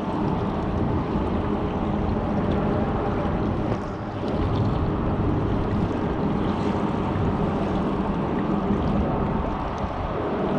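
Steady wind rushing over the microphone and water sloshing around a small inflatable boat, with a low steady hum underneath.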